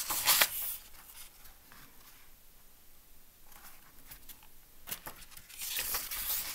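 Pages of a picture book being turned by hand: a quick paper swish right at the start and another near the end, with quiet between.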